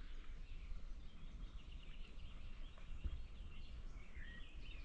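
Quiet outdoor ambience: faint bird chirps over a steady low rumble.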